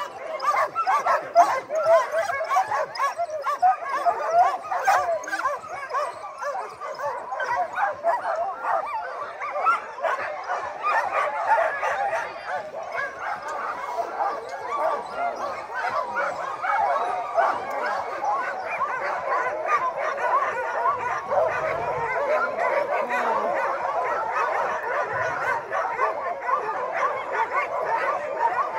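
A team of harnessed sled dogs barking and yelping together, many voices overlapping without a break.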